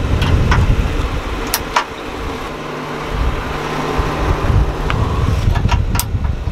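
A vehicle engine idling with a steady low rumble, over which metal tow-bar hardware clinks sharply a few times. The last clink comes as a hitch pin is slid into the receiver near the end.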